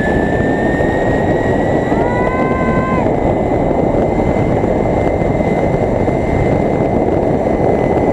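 Loud wind rush over the microphone of a zip-line rider travelling fast, with the trolley pulley whining along the steel cable; the whine climbs in pitch over the first three seconds as the ride gathers speed, then holds steady.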